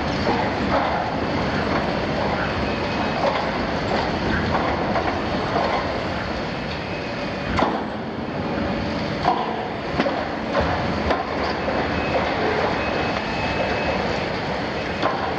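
Liebherr 974 demolition excavator's diesel engine and hydraulics running as its shear jaw tears and crushes steel tank plate, with metal grinding and squealing. Sharp clanks of steel come several times between about 7 and 11 seconds in and once near the end.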